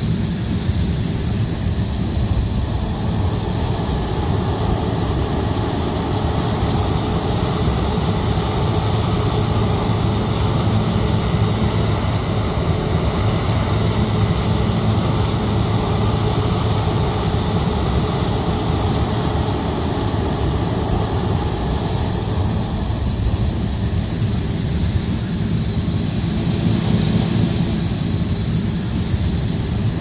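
New Holland CR8.90 combine harvester running steadily under load while harvesting corn, its engine and threshing drone unbroken.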